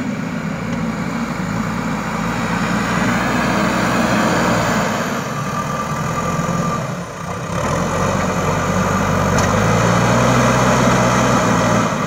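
JCB 3DX Super backhoe loader's diesel engine running steadily as the machine drives and works its front loader bucket. There is a brief dip about seven seconds in, and it runs a little louder after that.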